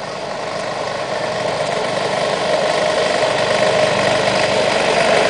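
Racing riding lawn mower engine running at a steady pitch, growing steadily louder as it comes closer.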